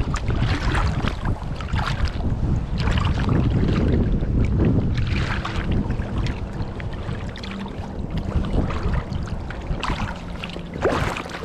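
Fast-flowing creek water and wind buffeting the microphone, with scattered knocks and rustles.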